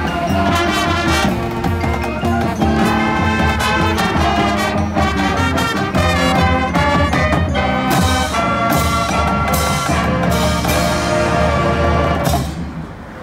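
Marching band playing: a brass melody over drums and front-ensemble percussion, with a run of sharp accented hits in the second half. The band cuts off about a second before the end, leaving the sound to fade.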